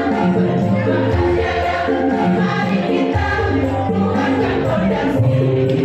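Women's choir singing a hymn in long held notes that change about once a second, over a low instrumental accompaniment.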